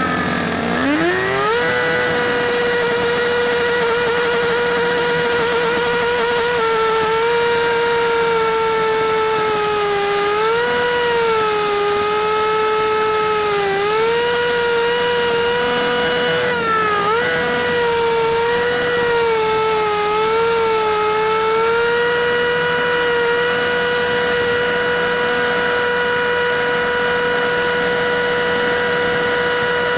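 Concrete cutting saw spinning up to speed in the first second or so, then running with a steady whine whose pitch dips and recovers several times as the blade takes load in the cut.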